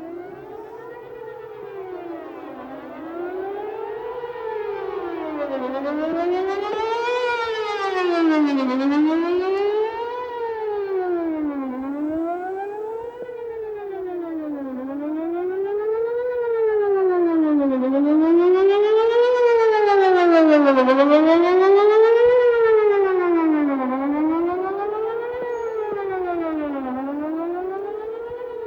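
Whelen WPS-4008 electronic outdoor warning siren sounding a wail, its tone sweeping up and down about every two and a half to three seconds. The rotating speaker array makes it swell and fade, loudest about a third of the way in and again about three quarters of the way through.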